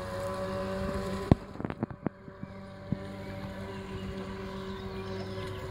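Radio-controlled model boat's 600-size brushed electric motor running steadily, heard as a steady whine of several even tones. A sharp click comes a little over a second in, followed by a cluster of smaller clicks over the next second or so.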